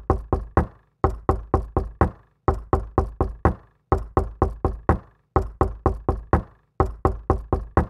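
A looped rhythmic knocking pattern: groups of about five sharp, ringing knocks, repeating about every second and a half.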